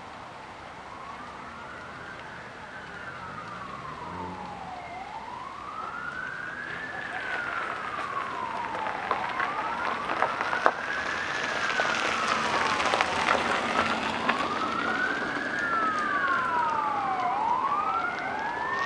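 Two emergency-vehicle sirens in slow wail, rising and falling about every four and a half seconds, the second joining partway through and both growing steadily louder as they approach. A few sharp cracks sound in the middle, the loudest about ten seconds in.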